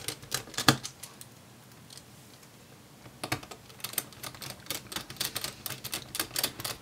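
Small Phillips screwdriver driving a battery screw into a laptop. A few clicks come near the start, then from about three seconds in a quick run of light clicks and ticks as the screw is turned in.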